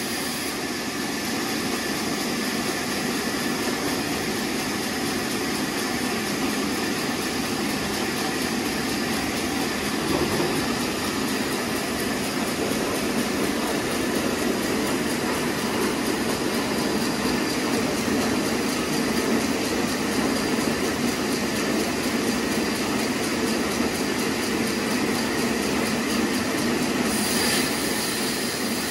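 Horizontal band sawmill running and sawing lengthwise through a teak log: a steady mechanical noise with a faint high whine.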